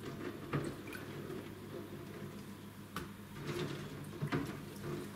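Water dripping and splashing softly as eggs are washed by hand in a sink of water, with a few short, light clicks.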